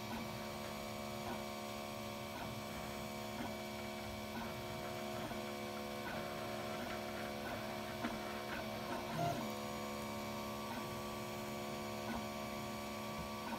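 Monoprice Maker Select Plus 3D printer running a print job: its motors hum steadily as the print head moves along its path, with faint clicks about once a second and a change in tone about nine seconds in. The nozzle is extruding no filament, so the print has failed.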